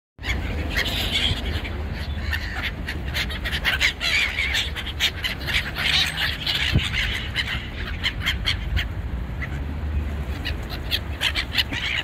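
A flock of black-headed gulls calling, many short calls overlapping one after another, over a steady low rumble.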